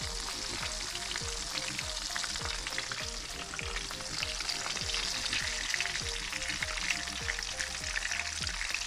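Cornmeal-breaded tilapia pieces frying in hot oil in a fryer: a steady sizzle and crackle, the fish close to golden and done. Faint background music with a steady beat runs underneath.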